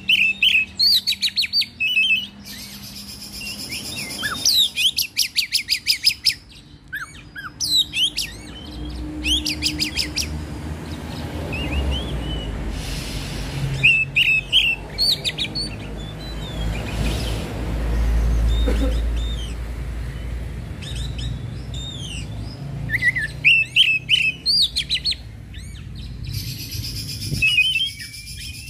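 Oriental magpie-robin singing in full voice, the loud, agitated song of a worked-up male: bursts of whistled phrases and fast repeated trills with short pauses between. A low rumble swells and fades in the middle.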